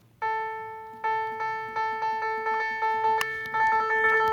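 Phone keyboard app's "music" key-press sound: a piano-like note plays on each tap, repeated about three times a second and faster near the end, each note striking and fading.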